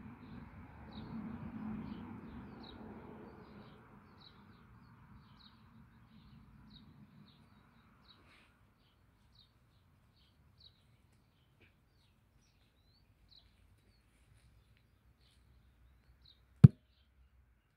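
A small bird calling with short chirps repeated about once or twice a second, over a faint rushing noise that fades out in the first few seconds. A single sharp knock near the end, the loudest sound.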